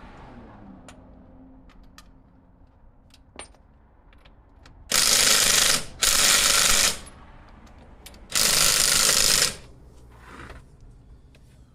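Impact wrench hammering on wheel lug nuts, in three loud bursts of about a second each, the second following close on the first and the third coming a little later.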